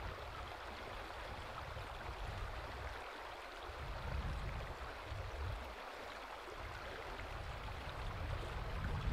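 Stream water running steadily, with a low rumble underneath that rises and falls.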